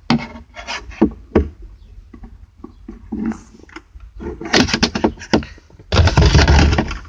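Clicks, knocks and scraping of plastic glove-box trim being pried loose with a flathead screwdriver, as the second side cover and its tabs are worked free. A louder second-long burst of rubbing and rattling comes about six seconds in.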